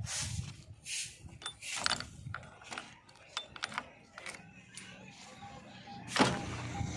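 JCB 3DX backhoe loader at work: a run of metallic clicks and clanks over a low engine rumble, with a loud thump about six seconds in.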